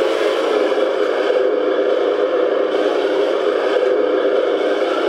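Remote-control T-34 model tank driving across a hard tabletop, running with a steady whir.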